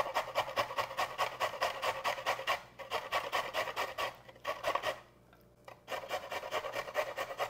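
Carrot being grated on a stainless steel box grater: quick rasping strokes, about five a second, with a pause of about a second near five seconds in before the strokes resume.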